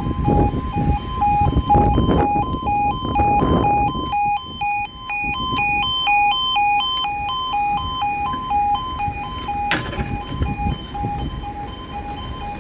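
Level crossing yodel alarm sounding: two tones alternating about twice a second. Strong wind gusts buffet the microphone, and there is one sharp knock about ten seconds in.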